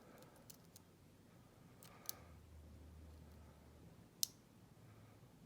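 Faint clicks of a lock pick and tension wrench working the pins of a Kryptonite padlock's brass pin-tumbler cylinder, held in a deep false set. A few light ticks come near the start, a click about two seconds in, and a sharper, louder click a little after four seconds.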